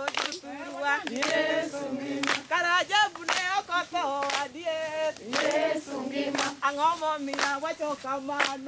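A group of voices singing a song together, with hand claps on the beat about once a second.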